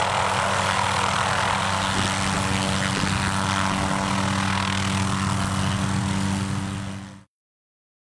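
Turbine helicopter hovering low, its rotor and engine giving a steady, loud drone with an even low hum. The sound cuts off suddenly about seven seconds in.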